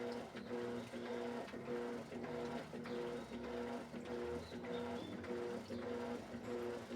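Electrolux LED14 top-load washing machine agitating a load of laundry: the motor hums in short strokes, on and off about twice a second, as the agitator swings back and forth.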